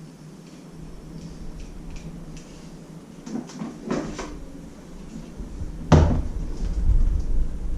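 Light clicks and taps of hard plastic being handled as a small alarm LED is worked into its hole in a motorbike's plastic tank cover. A few louder knocks come about three to four seconds in, and one sharp knock just before six seconds, followed by low rumbling handling noise.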